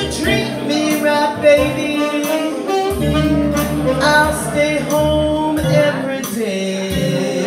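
Live jazz-blues combo playing a slow blues: a woman singing into a microphone over electric keyboard, with a saxophone playing along.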